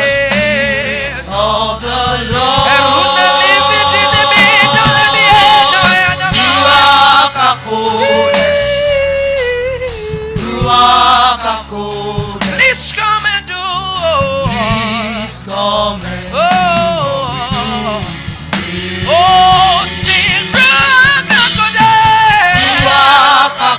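Singers performing a slow gospel worship song, holding long sung notes with wavering vibrato.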